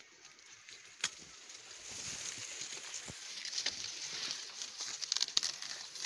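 Dry corn leaves rustling and crackling as someone pushes through the cornstalks, getting louder about two seconds in, with scattered sharp crackles. A single sharp click comes about a second in.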